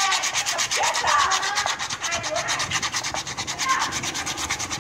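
Hand rubbing an etched copper sign plate under water in a plastic basin, in quick, even back-and-forth strokes, several a second.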